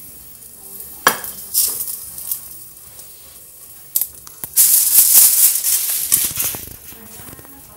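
Popcorn popping and rattling inside a covered frying pan with a glass lid. There are a few sharp pops, then a dense, loud rattle for a little under two seconds past the middle.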